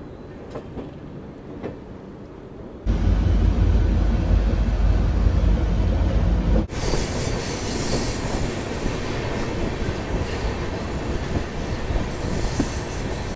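Moving passenger train, the Pushpak Express, heard in edited cuts. First a moderate running noise with a few sharp clicks, then about three seconds in a sudden much louder low rumble. After an abrupt cut, a steady rush of wheel and rail noise.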